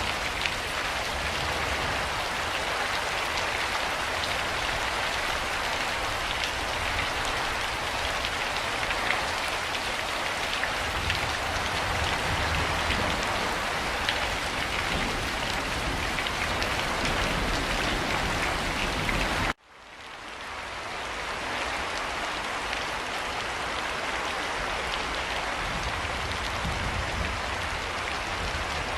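Steady rain falling, a dense even hiss of drops with faint patters. About two-thirds of the way through it cuts out abruptly and fades back in over a couple of seconds at an edit in the recording.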